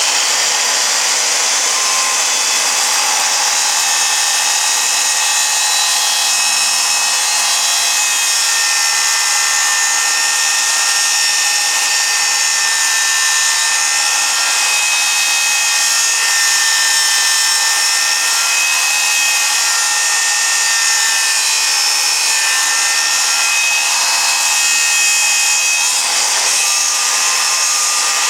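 Circular saw running at a steady pitch while its blade cuts wood, a continuous whine over cutting noise, making a final pass around the edge of a wooden disc.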